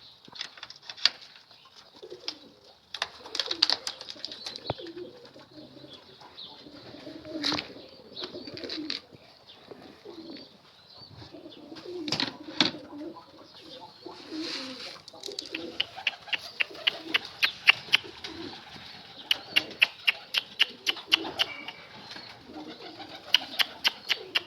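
Domestic pigeons cooing, with some wing flapping. Quick runs of sharp clicks, about five a second, come in the second half and are the loudest sounds.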